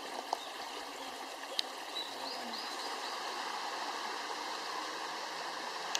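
Stream running steadily, with a bird giving a quick series of short high chirps about two seconds in.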